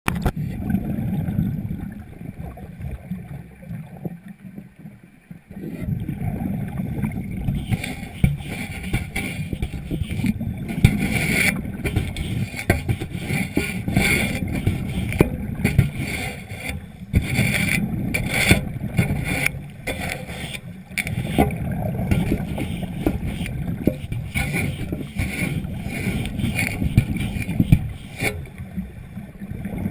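Muffled underwater noise recorded by a GoPro inside its waterproof housing: a steady low wash of water with frequent small knocks and clicks as the camera is moved and bumped. The sound dips briefly about four seconds in.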